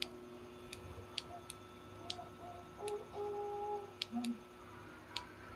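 Quiet room with a steady low hum and a handful of short, sharp clicks at uneven intervals.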